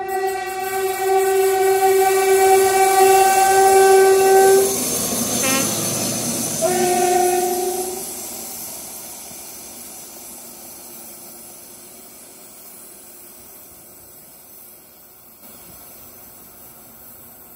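Diesel locomotive sounding its horn in one long blast as it approaches, then its engine and wheels rush past and a shorter blast follows at a slightly lower pitch. Its running noise then fades as it draws away.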